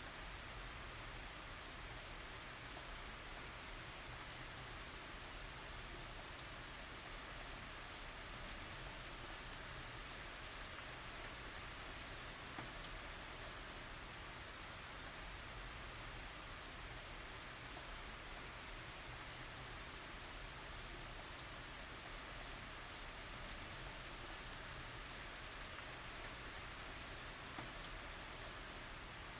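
Steady tropical rain falling on surfaces, an even hiss of many drops with faint pattering, no thunder.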